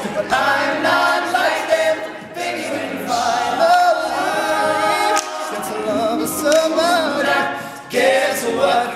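Men's a cappella group singing a pop song, a lead voice over backing voices in close harmony, with no instruments.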